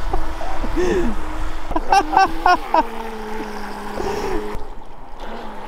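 Small electric motor of a radio-controlled fishing boat running with a steady whine. It drops to a lower pitch about three seconds in and stops abruptly near the end, over water splashing and low wind rumble. A brief voice sounds about two seconds in.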